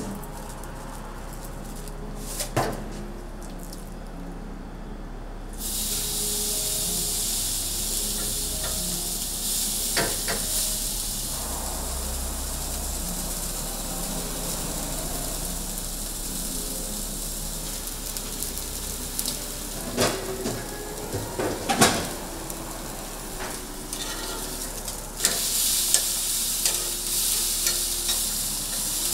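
Beef steak sizzling as it sears on a hot cooking surface; the sizzle starts abruptly about six seconds in and grows louder again near the end. A few sharp knocks of utensils on metal come through it.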